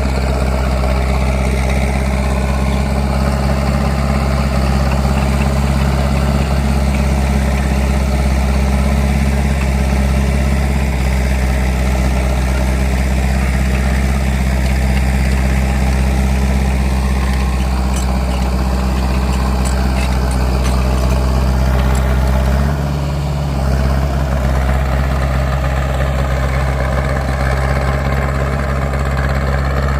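Caterpillar D3C small bulldozer's diesel engine running steadily and loud, briefly dropping in pitch and level for about a second about three-quarters of the way through before recovering.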